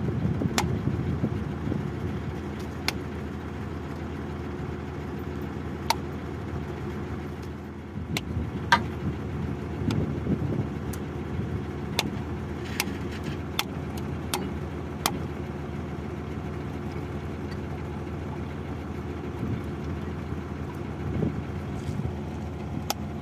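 Borewell drilling rig's engine idling steadily, with scattered light clicks and taps over it.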